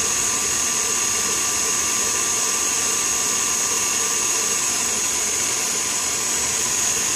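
Electric stand mixer running steadily at medium speed, its wire whisk beating cream in a stainless steel bowl, with the cream beginning to thicken. A steady motor hum with a constant high-pitched tone over it.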